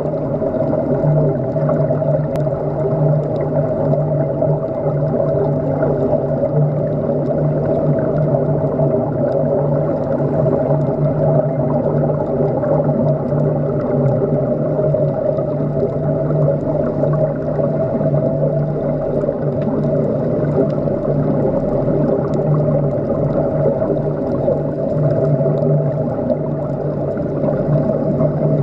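Steady mechanical hum heard underwater, with a low drone and a higher tone held at constant pitch over a muffled watery hiss.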